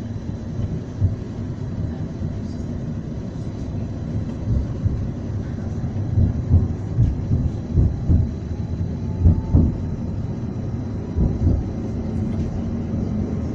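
Tram pulling away from a stop and running on its rails, heard from inside the car: a steady low rumble with irregular deep thumps and knocks, busier after the first few seconds.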